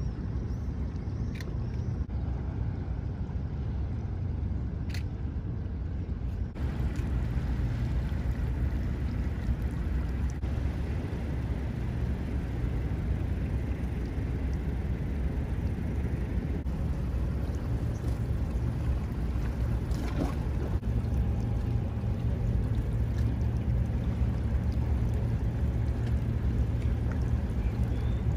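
Steady low rumble of a large motor-sailing yacht's engines and propulsion as it manoeuvres slowly in harbour, with water noise and a few faint clicks.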